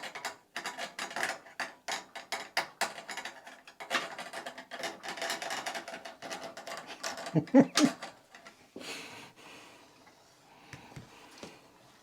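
Hands working on the inside of a stereo unit: a fast run of small sharp clicks, then a scraping rattle of plastic and metal parts, with two louder dull knocks a little past halfway, then fainter handling.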